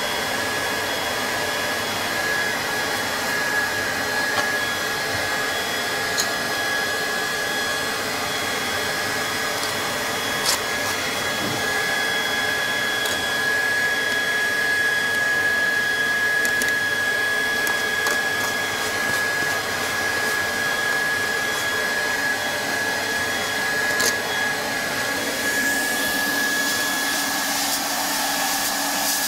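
Hot-air welding gun for vinyl flooring blowing steadily, a constant rushing hiss with a thin high whine, broken by a few light clicks.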